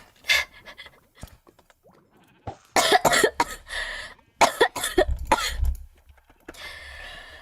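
A woman coughing in several wet, phlegmy bouts, with short pauses between them.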